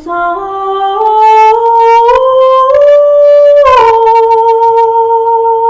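A woman's unaccompanied alto voice singing one long held syllable. The pitch climbs note by note for about three and a half seconds, then drops and settles on one long steady note.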